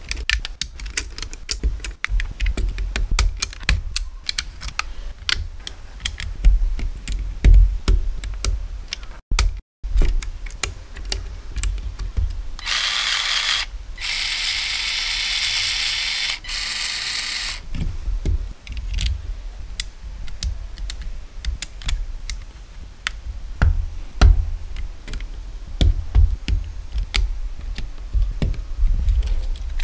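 Plastic building bricks clicking and snapping as a toy tank hull is put together and handled by hand: many quick, irregular clicks and knocks. About halfway through, a steady hiss-like noise lasts about five seconds.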